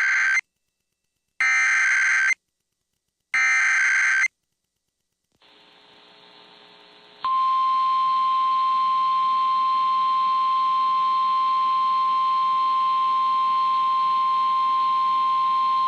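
Emergency Alert System SAME header: three one-second bursts of digital data tones, evenly spaced. After a short pause with faint hiss, the steady 1050 Hz weather-radio alert tone sets in about seven seconds in, announcing a new warning.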